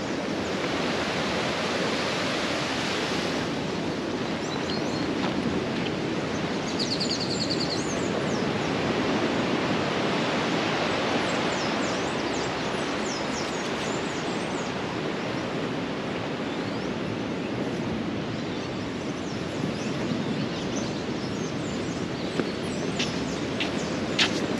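Steady rushing noise of surf breaking on the beach, swelling and easing gently.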